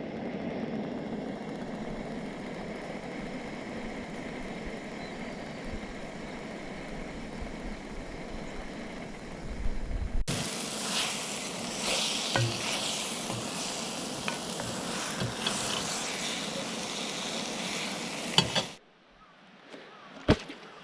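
Eggs, peppers and sausage frying in a cast-iron skillet: a steady sizzle with small pops and crackles. It turns louder and brighter suddenly about halfway through, then cuts off near the end.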